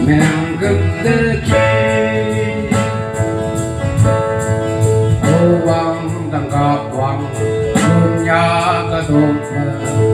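A man singing a song into a microphone over instrumental backing with a steady beat.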